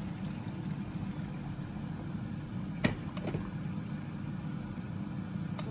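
A steady low hum, with one sharp knock of a wooden spoon against the cooking pot about three seconds in, while the curry is stirred.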